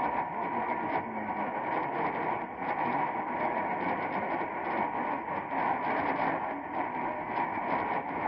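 AM radio tuned to 1450 kHz giving a steady hiss full of irregular crackles and pops from lightning static, with a weak, fading station barely coming through underneath.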